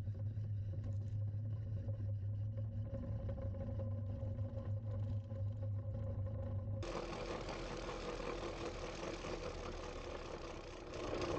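Prototype battery-electric rail cart rolling along old steel rails: a steady electric motor hum over the rumble of its wheels on the track. About seven seconds in the sound changes abruptly to a louder, noisier rolling sound.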